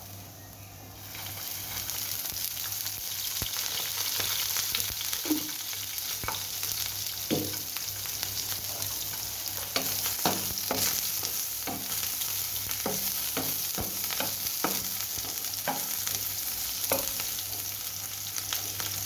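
Onion sizzling in hot oil in a pan as it is stirred, the sizzle starting about a second in, with scattered sharp clicks and pops throughout.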